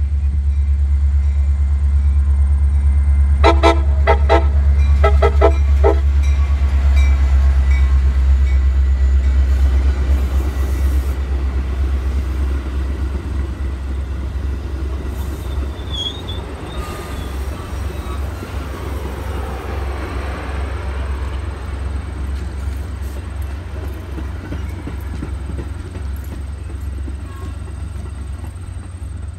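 Metra commuter train passing close by: the diesel locomotive's deep engine rumble, a quick run of short horn toots a few seconds in, then the bi-level cars rolling past with wheel-on-rail noise that fades as the train moves away.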